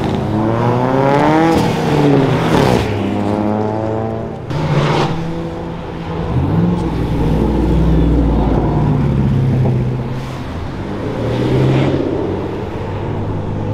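Cars accelerating past one after another, engines revving with pitch rising in two quick sweeps, each ending in a loud burst, followed by a deep, low engine rumble from a passing car.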